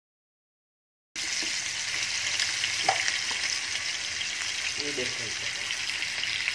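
Spice-marinated Indian mackerel shallow-frying in hot oil in a non-stick pan: a steady, loud sizzle that cuts in suddenly about a second in, after a moment of silence.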